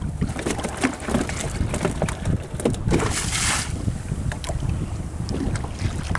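Wind buffeting the microphone over choppy sea water sloshing against a small boat's hull, with scattered small splashes and a louder rush of water about three seconds in.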